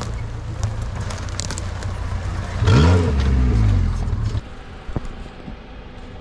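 Off-road 4x4's engine running under load, revved hard about three seconds in with a rise and fall in pitch, then dropping back sharply, with scattered clicks and crackles.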